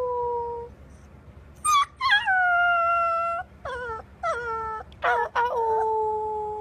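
Golden retriever puppy howling: a series of short and long howls, each sliding down in pitch into a held note.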